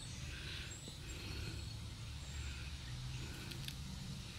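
Quiet outdoor background noise: a low steady rumble, with a few faint high chirps and a couple of light clicks about three and a half seconds in.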